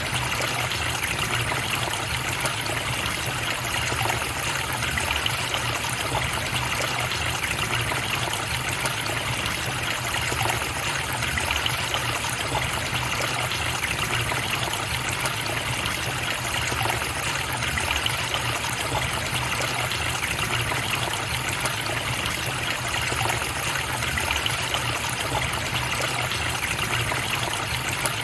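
Running water of a forest stream, a steady, unbroken flowing and trickling.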